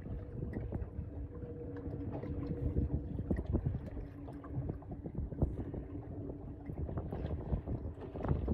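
Water splashing and sloshing in a boat's live well as a stream of water pours in and hands move a smallmouth bass under the surface, with many small splashes. A steady low hum runs underneath and stops about seven seconds in.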